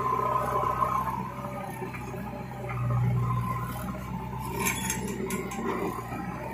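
JCB 3DX backhoe loader's diesel engine running steadily as the machine drives over rough ground, swelling briefly about three seconds in, with a cluster of metallic clinks and rattles from the machine a little before five seconds.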